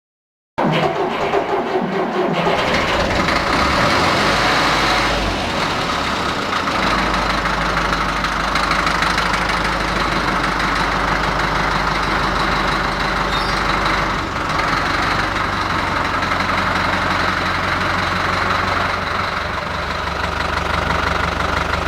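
Deutz F4L514 air-cooled four-cylinder diesel engine running steadily, its cylinders and cylinder heads freshly repaired.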